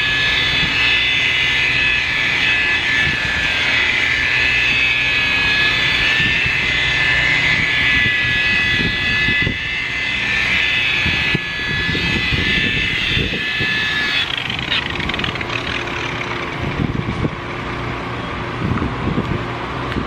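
Rotary polisher with a wool pad running steadily with a high motor whine as it compounds the boat's gel coat. The whine stops about fourteen seconds in, leaving a lower steady hum and a few knocks.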